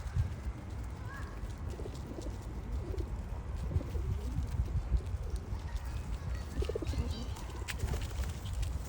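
Pigeons cooing, several low rolling coos in the middle of the stretch, over a steady low rumble.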